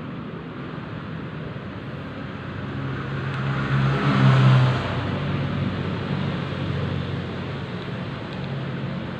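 A motor vehicle's engine humming steadily, swelling to its loudest about four seconds in and then fading back, as if passing by.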